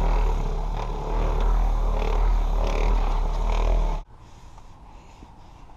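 Electric buffer/polisher running against car paint with compound, a steady rough whirring with a deep hum, then cutting off abruptly about four seconds in, leaving a much quieter background.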